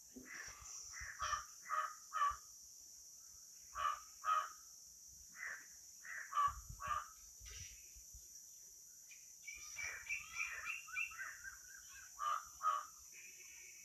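Crows cawing in short, harsh calls, mostly in pairs, with another bird chattering in quicker, higher notes a little past the middle; a steady high hiss runs underneath.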